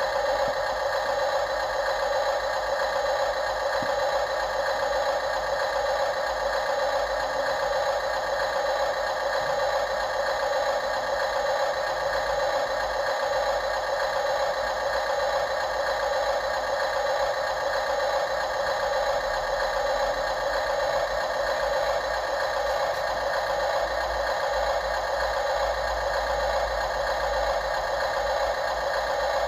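The small motors of radio-controlled construction machines running steadily, a constant whine with a light rattle.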